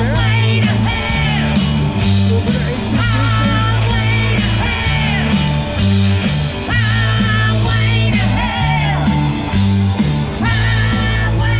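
Live rock band playing: a singer over electric guitars and a bass line of held low notes.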